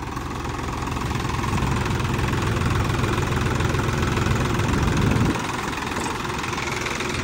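Swaraj 963 FE tractor's three-cylinder diesel engine idling in neutral, easing slightly about five seconds in. The owner blames dirt in the fuel filter for starving the engine of diesel and for a jerky 'jhak-jhak' in its running.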